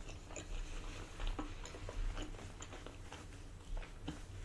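A person chewing a mouthful of spaghetti with meat sauce close to the microphone: soft, irregular wet mouth clicks and smacks, several a second.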